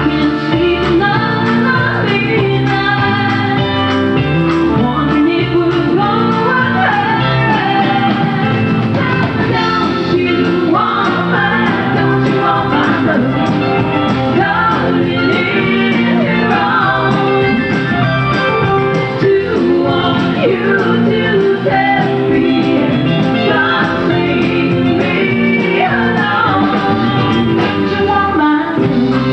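Live country band playing through a PA: drum kit, bass, electric guitars and keyboards, with a woman singing lead.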